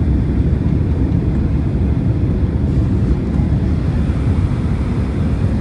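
Steady low rumble inside the passenger cabin of a jet airliner, the even drone of the engines and cabin noise.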